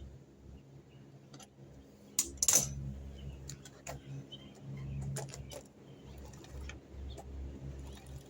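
Scattered clicks and metallic clinks of tools and objects being handled, with a louder clatter about two seconds in, over a low background hum.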